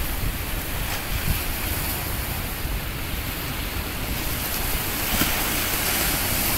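Sea surf washing and breaking against the boulders of a rock breakwater, a steady rushing noise, with wind rumbling on the microphone.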